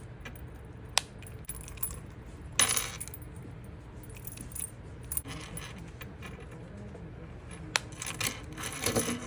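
Handling noises from an AirPods case and its packaging being unboxed: a few sharp clicks and short bursts of rustling and tapping.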